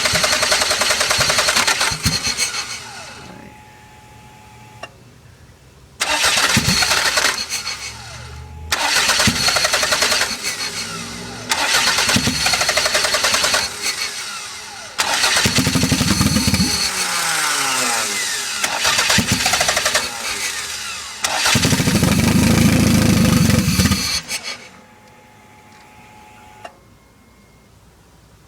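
Toyota MR2's 3S-GTE turbocharged four-cylinder engine being cranked on the starter in six bursts with short pauses between them. It catches and stumbles, its pitch rising and falling, but dies out each time instead of settling to an idle, the no-start/idle fault the owner is chasing.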